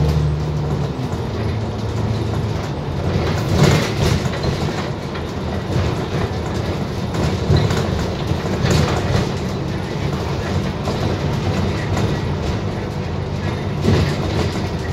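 Inside an Alexander Dennis Enviro 400 double-decker bus on the move: steady engine and road rumble with the cabin rattling, and a few knocks as the bus jolts over bumps, about four, nine and fourteen seconds in.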